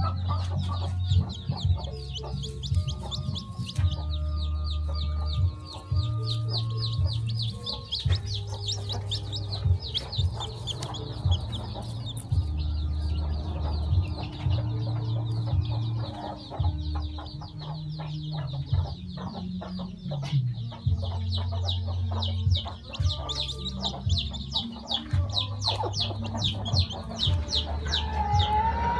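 Newly hatched chicks peeping rapidly and continuously in high, short cheeps, over background music with a steady, stepping bass line.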